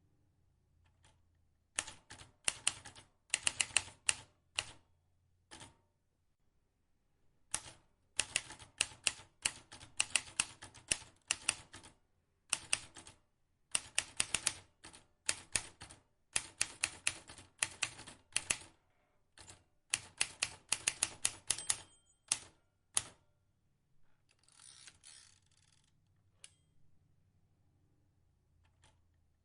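Vintage manual typewriter being typed on: quick runs of sharp key clicks with short pauses between them. Near the end the clicking stops for a longer rasping sound.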